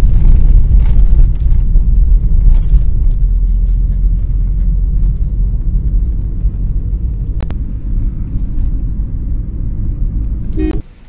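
Steady low rumble of a car driving along a road, heard from inside the cabin, with a few light rattles and clicks. It stops abruptly near the end.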